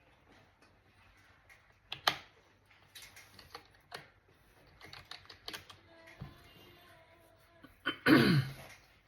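Laptop keys and clicks tapped in scattered strokes. Near the end comes a short, loud vocal sound that falls in pitch, like a throat being cleared.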